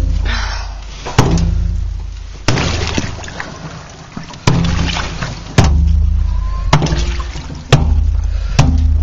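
A metal tool chopping through the ice on a frozen water trough: about eight sharp blows, roughly one a second, each followed by a low ringing that fades.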